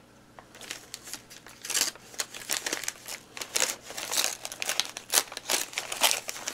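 Paper being handled, crinkling and rustling in irregular bursts that start about a second and a half in, as letters are taken out of their packaging.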